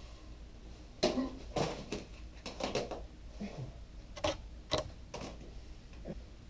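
Short wet squelches and splats of cream pie as it is wiped off a face and shaken off the hands, about eight separate sharp sounds.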